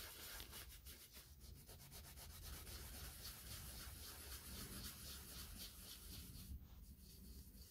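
A Scotch-Brite abrasive scouring pad scrubbed by hand in quick back-and-forth strokes along a rusty cast-iron lathe bed slideway that is still wet with rust-dissolving gel. The strokes are faint and rubbing.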